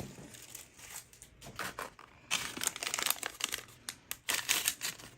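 Small plastic blind-bag wrapper crinkling and tearing as it is opened by hand: irregular rustles that grow busier and louder a little over two seconds in.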